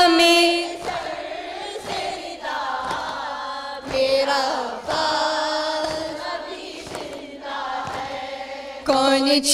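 Mourners chanting a Muharram noha refrain together in Urdu, softly and without the lead singers, with a beat about once a second from chest-beating (matam). The lead women's voices come back in near the end.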